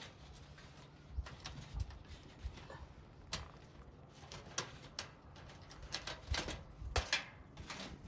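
Irregular light clicks and knocks of an eating utensil against a food container, with a few soft low thumps, spaced unevenly through the stretch.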